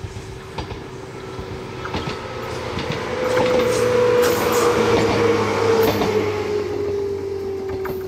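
Echizen Railway MC6101-type electric railcar running past, its wheels clicking over the rail joints. It grows louder to a peak about four seconds in, then fades, with a steady whine that drops slightly in pitch as it goes by.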